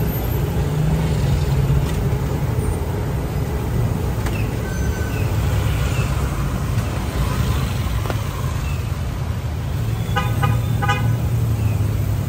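Street traffic with engines running in a steady low rumble, and a vehicle horn giving two short beeps about ten seconds in.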